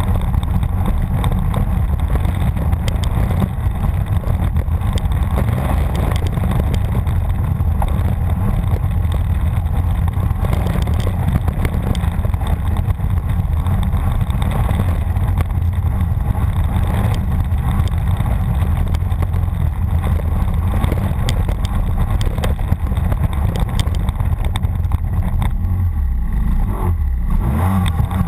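Snowmobile engine running steadily as the sled is ridden over bare ground and snow patches, heard close up from a camera on the sled. Near the end the engine note drops briefly and comes back.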